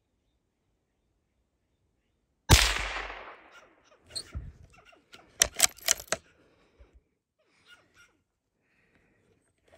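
A single gunshot about two and a half seconds in, echoing away over about a second. It is followed by a quick run of sharp knocks and rustles.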